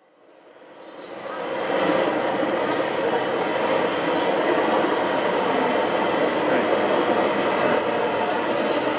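O gauge model Class 56 diesel locomotive hauling coal wagons past at a steady pace, a continuous train running sound that fades in over the first two seconds.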